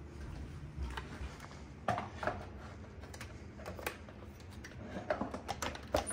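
Scattered plastic clicks and knocks from a bagless upright vacuum being gripped and handled by its handle and dust bin while its motor is off. The clicks come singly at first and bunch together near the end.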